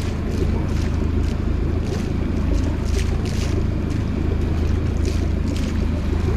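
A boat's engine running steadily with a constant low hum, with wind and water noise over it.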